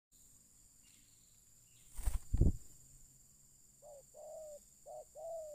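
Two loud thumps about two seconds in, then a spotted dove cooing from about four seconds in: a short note followed by a longer one, repeated.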